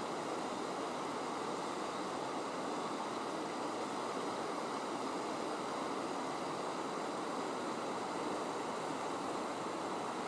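Clear, shallow river water flowing and rippling over a stony bed, a steady even rush.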